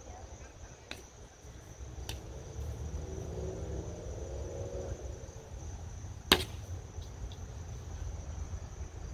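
A single sharp crack about six seconds in: a toddler's toy bat hitting a pitched ball. Fainter clicks come earlier. Insects buzz steadily at a high pitch throughout.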